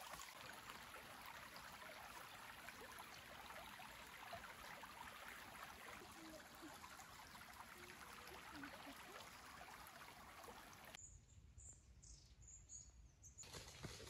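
Faint, steady rush of a small forest stream running over rocks. About eleven seconds in it cuts off abruptly to a quieter low rumble with a few high bird chirps, and the rush returns near the end.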